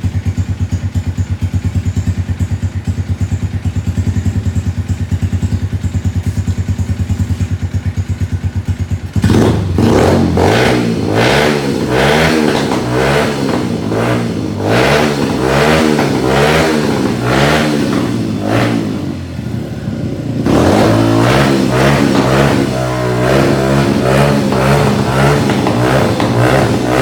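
Shelby RENZ 150cc single-cylinder, two-valve four-stroke motorcycle engine idling steadily with an even low pulse. About nine seconds in it is revved repeatedly, its pitch rising and falling over and over.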